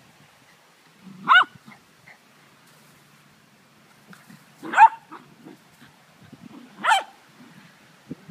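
Dog barking three times during rough play: short, loud barks a few seconds apart, with faint low sounds from the tussling dogs between them.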